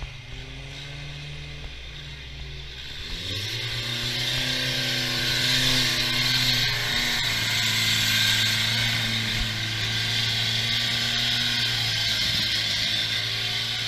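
Modified off-road 4x4's engine revving up about three seconds in, then held at high revs as it drives through deep mud. A broad hiss rises over the engine at the same time.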